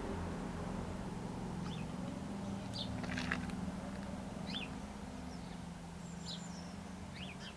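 Birds chirping, a few short falling calls now and then, over a low steady hum.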